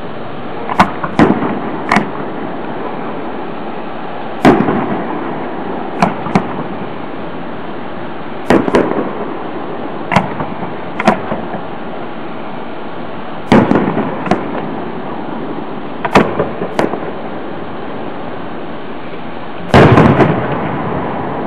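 Aerial firework shells bursting overhead: a string of sharp booms every second or two at uneven intervals, the loudest near the end, over a steady background noise.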